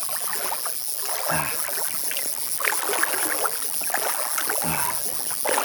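Lake water sloshing and splashing around a small boat while a hooked trout is played on a fly rod, an irregular watery noise at a steady level.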